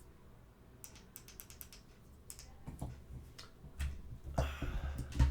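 Brightness buttons on a Neewer dimmable USB LED video light being clicked repeatedly to step the light up and down, in quick runs of small clicks. Near the end, a rustle of handling and a thump.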